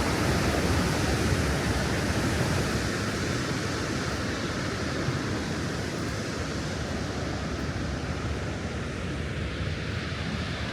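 Steady rushing of the Vøringsfossen waterfall, a dense even hiss that grows slightly quieter over the seconds.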